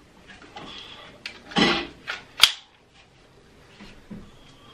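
A Draco NAK-9 9mm pistol being handled: a short scrape and then a couple of sharp metallic clicks, the loudest about two and a half seconds in.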